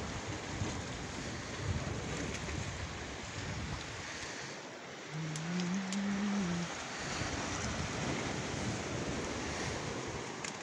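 Small sea waves washing and breaking against a rocky shore, a steady wash of water. About halfway through, a short low hum, rising slightly in pitch, lasts about a second and a half.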